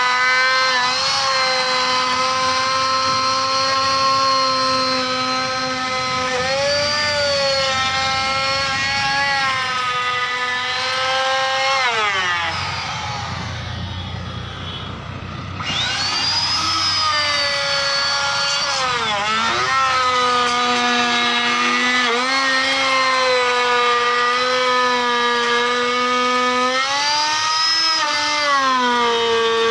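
Electric plunge router running at high speed with a steady high whine, its pitch dipping briefly several times as the spinning bit bites into the wood. About twelve seconds in the motor winds down, and some three seconds later it spins back up to full speed.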